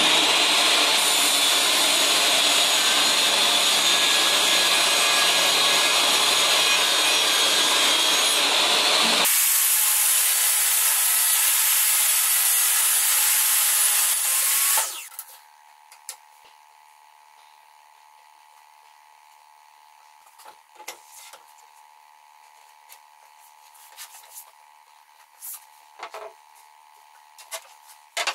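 Jobsite table saw cutting the blade kerf through a wide sled-base panel for about nine seconds, then running free with a thinner, higher sound until it is switched off about fifteen seconds in. Afterwards a few light knocks as the panel is handled.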